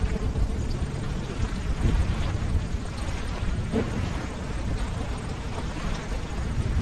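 Ocean waves: a continuous wash of surf with a deep low rumble, swelling and easing gently.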